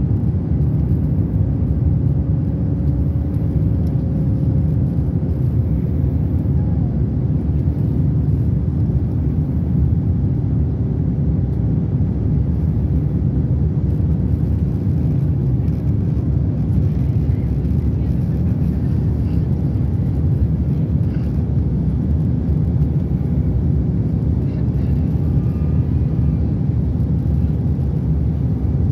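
Airbus A350 cabin noise during the climb after takeoff: the Rolls-Royce Trent XWB engines and the air rushing past the fuselage make a loud, steady, deep rumble with a faint hum above it.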